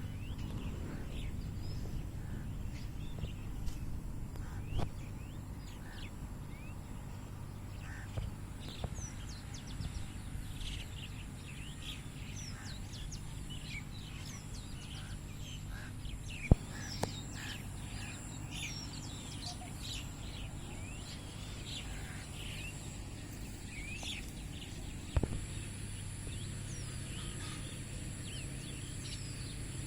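Many small birds chirping, short high chirps overlapping throughout over a steady low background rumble. Two sharp clicks stand out, one a little past halfway and one later on.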